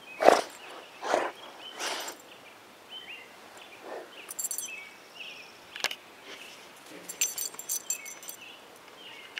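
Boxer dog sniffing and snuffling close by, with three loud sniffs in the first two seconds and a few fainter ones later. Small birds chirp and trill in the background.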